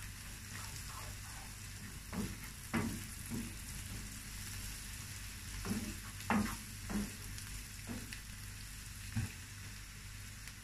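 Chopped onions with chilli flakes and black pepper sizzling in olive oil and butter in a frying pan, being stirred with a wooden spatula. The spatula scrapes and knocks against the pan now and then over the steady sizzle.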